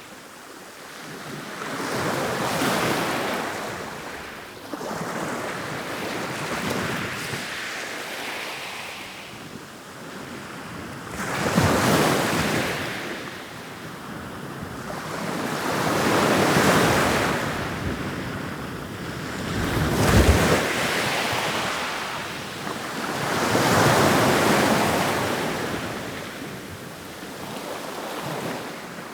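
Ocean waves rolling in and breaking as surf, a swell of rushing water about every four to five seconds, each surge building and then washing away.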